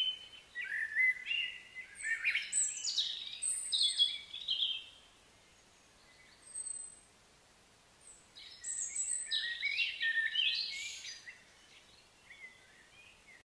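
Songbirds chirping and calling in quick, varied high phrases, in two bouts with a few seconds' pause between them; the sound cuts off abruptly near the end.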